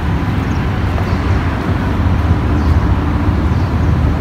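Steady low rumble of outdoor background noise, with a faint steady hum running through it.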